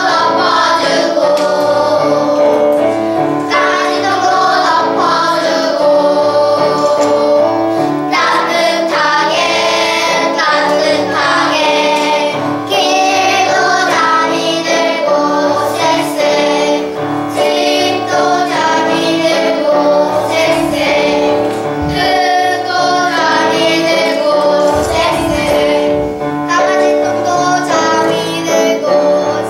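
A class of young children singing a song together, over a steady instrumental accompaniment.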